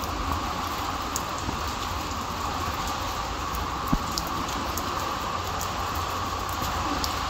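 Steady rain falling on wet concrete pavement, with scattered sharp drop ticks and one louder tick about four seconds in.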